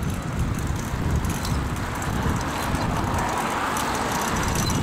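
Wind rumbling on the microphone and bicycle tyres rolling on pavement while riding, a steady rushing noise with a few small rattles and clicks.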